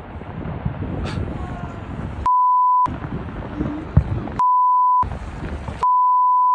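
Three censor bleeps, steady 1 kHz tones each lasting about half a second to a second, that replace the original audio, most likely blanking out swear words, between stretches of noisy, rumbling outdoor background sound.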